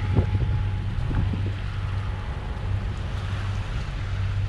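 Steady low drone of a sailboat's engine running as it motors through calm water, with wind noise on the microphone.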